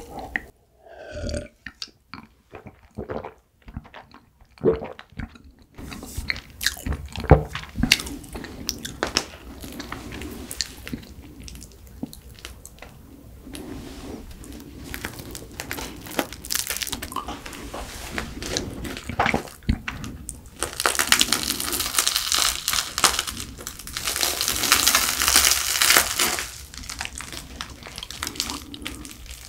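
Close-miked eating sounds: a few gulps of a drink at the start, then chewing. Later comes a long crackling tear as a crusty garlic baguette is pulled apart by hand.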